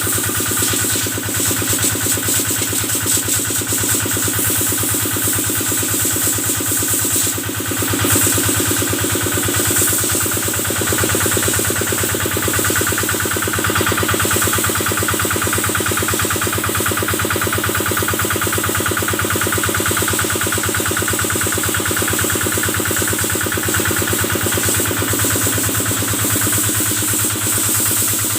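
Kubota engine of a cattle-washing sprayer running steadily at a constant speed, with a fast even firing pulse and a steady high hiss over it.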